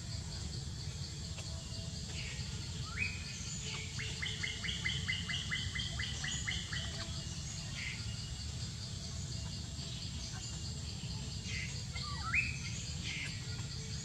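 High chirping animal calls: a rising chirp about three seconds in, then a quick run of about a dozen chirps at roughly five a second, and another swooping call near the end. A steady pulsing high-pitched tone and a low rumble run beneath them.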